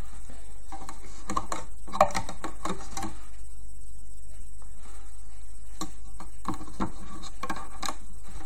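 Small plastic clicks and taps in two bunches as rubber loom bands are stretched and slipped over the plastic pegs of a band loom, over a steady low hum.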